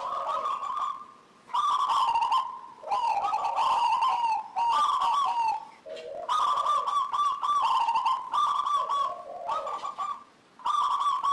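Local zebra dove (perkutut) singing its rapid, rippling cooing song in several phrases, separated by short pauses.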